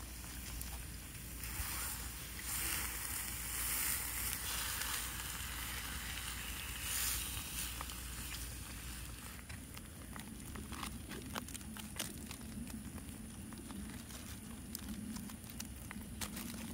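Steak sizzling in a small steel pan over a wood campfire, with the burning wood crackling and popping in many sharp clicks, more of them in the second half.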